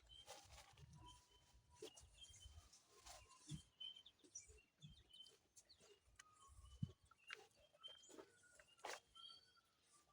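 Faint rural ambience: small birds giving short chirps and whistles, with scattered soft clicks and low knocks.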